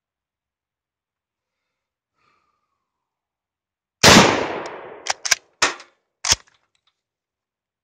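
A single .303 rifle shot from a wire-wrapped Ishapore No. 1 Mk III Lee-Enfield, about four seconds in, its report dying away over about a second. It is followed by the bolt being worked: four sharp metallic clacks over about a second and a half.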